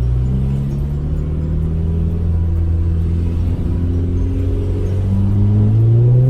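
Audi A3's turbocharged four-cylinder TFSI engine running through a 2.5-inch straight-pipe exhaust from the O2 sensor back, resonator cut, as the car drives: a steady low drone that begins to rise in pitch near the end as the car accelerates.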